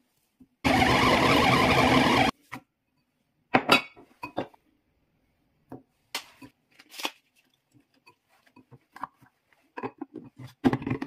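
A loud steady rushing noise for about a second and a half near the start, then a scatter of clinks and knocks as a glass food-chopper bowl and its lid are handled and the lid is fitted on.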